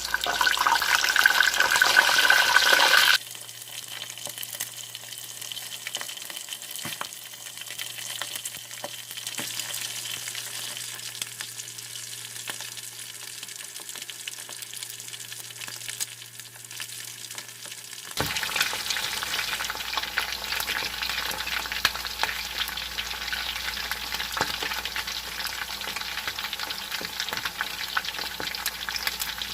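Chicken drumsticks sizzling in hot vegetable oil in a frying pan, with many small pops. The sizzle drops to a quieter level about three seconds in, with a faint steady hum under it, and comes back louder about eighteen seconds in.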